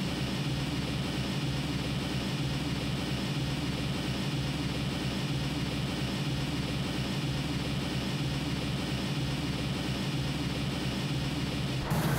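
Steady low roar of a high-output commercial gas burner under a large pot of boiling noodle water, with a faint regular pulse about once a second.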